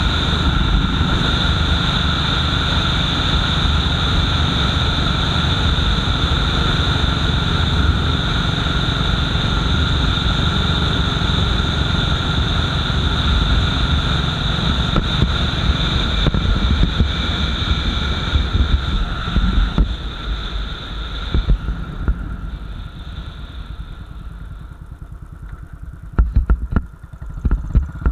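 Royal Enfield Bullet 500's single-cylinder engine running at road speed under steady wind noise. About two-thirds through, the throttle closes and the bike slows, and the engine drops to a slow, even beat near idle. A few sharp knocks come near the end.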